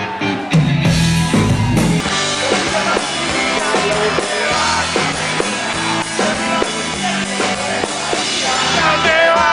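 Rock band playing live: an instrumental passage driven by a drum kit, with no singing.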